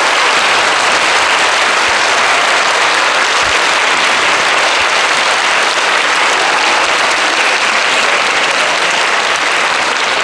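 Large audience applauding, steady and unbroken throughout.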